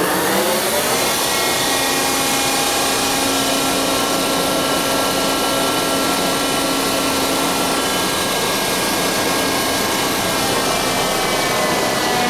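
Ship's hydraulic anchor windlass running: the hydraulic drive winds up in pitch over the first second, then runs steadily and loudly with a whine as the motor turns the capstan through the gearbox.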